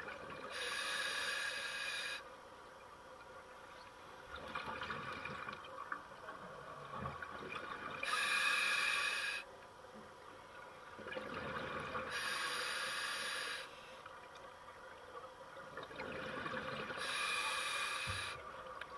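Scuba breathing through a regulator, heard underwater. Hissing inhalations of about a second and a half each come roughly every four to five seconds, with rougher, bubbly exhalations between them.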